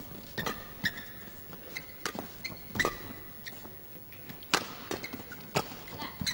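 Badminton hall ambience between points: scattered short knocks and brief high squeaks, typical of players' shoes on the court mat, over a low hall hum.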